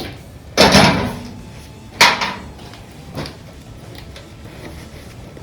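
Three knocks of tools on metal engine parts: a loud, drawn-out clunk about half a second in, a sharp ringing knock about two seconds in, and a lighter knock about a second later.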